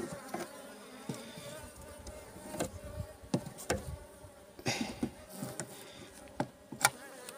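Honeybees buzzing faintly over an open hive, with scattered sharp wooden knocks and scrapes as a hive tool pushes the frames' top bars together.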